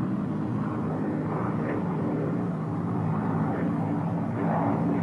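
Twin Allison V-12 engines of a Lockheed P-38 Lightning in flight, a steady drone with the aircraft on landing approach, gear down.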